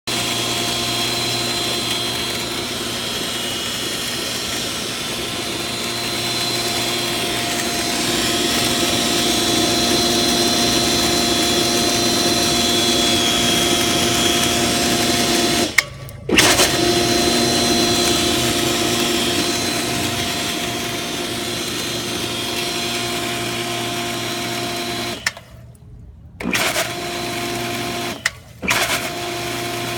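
Commercial pool pump motor running steadily: a hum with a high whine over it, the noise of a bearing or shaft seal starting to go out. The sound cuts out briefly about halfway through and twice near the end.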